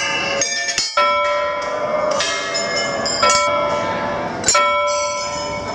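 Hanging brass temple bells rung by hand, struck about five times. Each strike rings on and overlaps the next.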